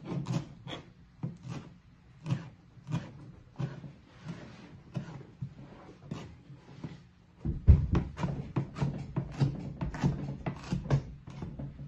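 Kitchen knife chopping cilantro on a plastic cutting board: uneven chops at first, then from about seven and a half seconds in a quicker steady run of about three or four chops a second.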